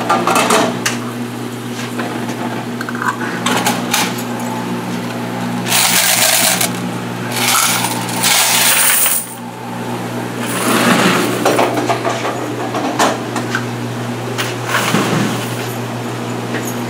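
Quarters being tipped out of a coin-op washer's metal coin box into a plastic bucket, cascading and jingling in several bursts of a second or two. Clicks and rattles of the coin box being handled come first, over a steady low hum.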